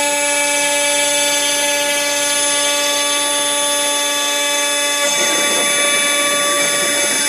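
Router spindle of a home-made CNC machine running at speed with a steady whine as it carves hardwood. About five seconds in, a rougher, scratchier noise joins the whine as the bit cuts.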